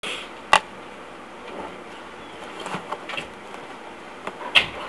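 A steady hiss with scattered knocks and rustles: a sharp knock about half a second in, softer knocks and rustling through the middle, and another sharp knock near the end.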